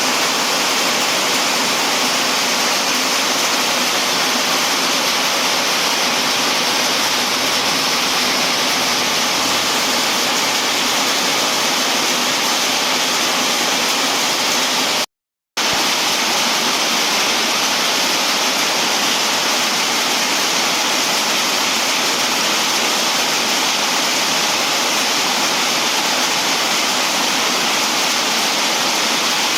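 Heavy rain falling steadily, a loud even hiss, broken by a half-second gap of silence about halfway through.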